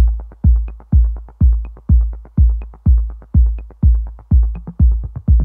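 Background electronic music with a steady drum-machine beat: a deep kick about twice a second, with light ticks between the kicks.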